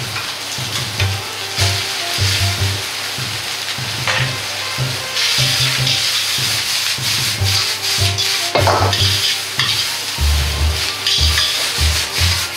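Rice noodles and vegetables sizzling in a hot wok while being tossed and scraped with metal tongs; the sizzle grows louder about five seconds in. Background music with a steady bass line runs underneath.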